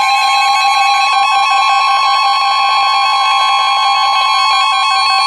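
NOAA Weather Radio warning alarm tone: one steady, loud, high-pitched electronic tone. A receiver's rapidly pulsing alarm beeps alongside it. The tone is the signal that a warning is about to be read.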